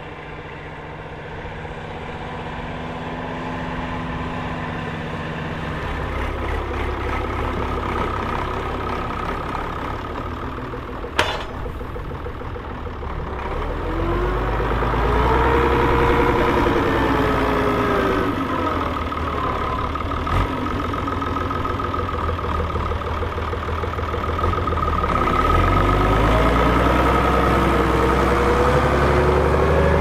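Fiat 1500 tractor's diesel engine working hard pulling a four-furrow plough, growing steadily louder as it comes closer, its note rising and falling a little with the load. A single sharp click sounds about eleven seconds in.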